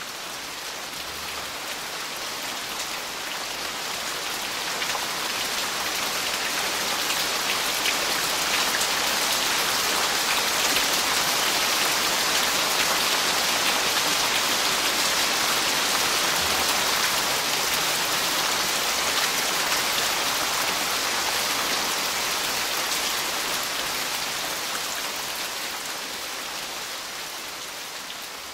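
Steady rain falling, an even hiss of drops with no music over it; it swells up over the first several seconds, holds, then fades out toward the end.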